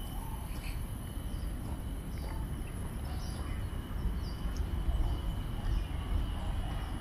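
Birds chirping in short calls repeated about twice a second, over a faint steady insect drone and a steady low rumble of background noise.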